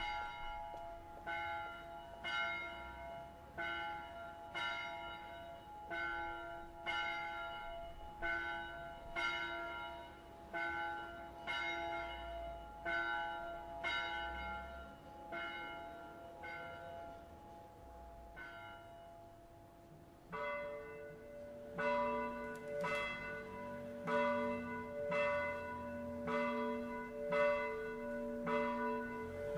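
Church bells ringing: a bronze bell cast in 1695 strikes about once a second, its strokes growing weaker and stopping just before twenty seconds in. Then a second, deeper-toned bell starts and rings a little faster.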